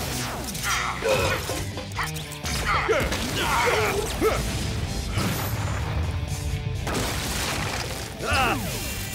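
Cartoon fight soundtrack: dramatic action music under laser-zap sweeps and crashing hit sound effects, several short blasts and impacts scattered through it.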